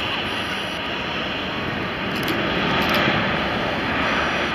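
Airbus A380's four jet engines running as the airliner rolls down the runway: a steady, noisy rumble that grows slowly louder.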